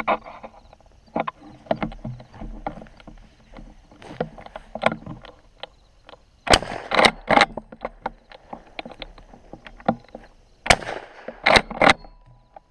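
Irregular knocks, clicks and rustling close to the microphone, with two louder clusters of scraping, rustling noise about halfway through and near the end.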